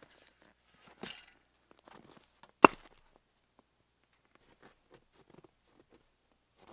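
Faint crunching and crackling in snow, a soft knock about a second in, then one sharp, loud knock of wood on wood near the middle.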